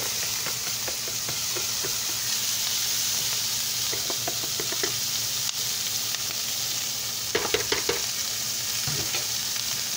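Sliced onion and bell pepper sizzling steadily as they go into a hot skillet of pork-chop drippings and are sautéed, with a brief run of sharp clicks about seven seconds in.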